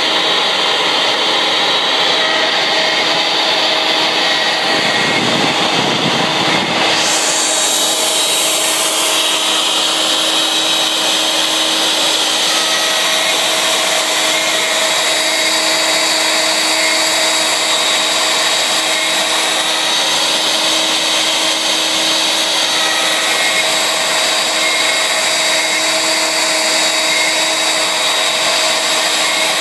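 ShopBot CNC router spindle running steadily while the bit carves a 3D toolpath into MDF. A constant whine and hum sit over a wash of cutting and air noise. A brief low rumble about five to seven seconds in gives way to a brighter hiss that carries on.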